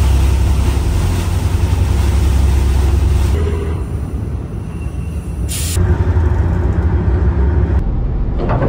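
Tugboat's engines running with a deep, steady low hum, with a rushing noise over it for the first few seconds. The sound changes abruptly about three seconds in and again near eight seconds, with a short burst of noise just before six seconds.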